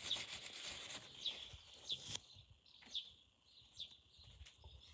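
A small plastic mouse part being wiped clean with a cloth: faint rubbing with short, high squeaks about once a second.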